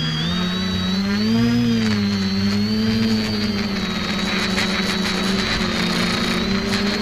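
Multicopter's electric motors and propellers whirring in flight, a steady drone of several tones that drift slightly up and down as the throttle is adjusted.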